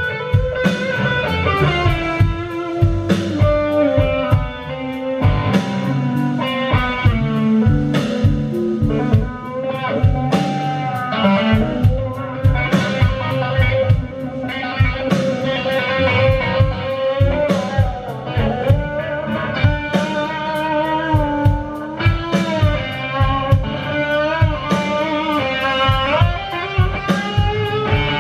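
Live blues-rock band: a Stratocaster-style electric guitar plays a lead of sustained notes that bend and glide in pitch, over bass and steady drum beats.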